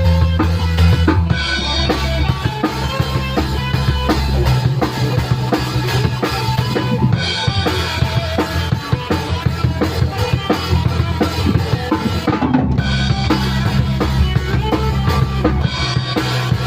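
A rock band playing an instrumental passage at full volume: a busy drum kit with kick and snare over sustained bass notes that shift every few seconds, with other instruments filling in above.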